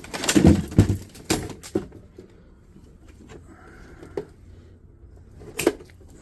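Clatter of plastic and metal parts from a fax machine being taken apart by hand. There is a quick run of knocks and rattles in the first second, two more knocks soon after, then scattered single clicks, with a sharp one near the end.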